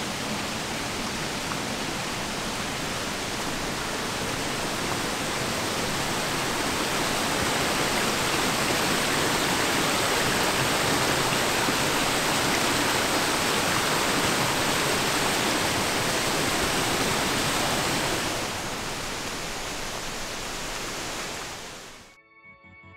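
A small forest stream rushing and tumbling over rocks, a steady rush of water that cuts off suddenly near the end.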